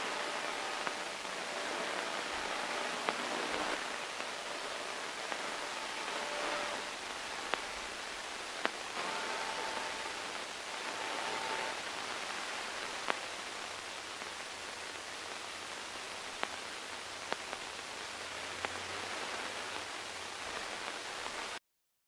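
Static from a CB base-station radio receiver tuned to 27.025 MHz: a steady hiss with faint whistling tones in the first half and a few sharp clicks scattered through it.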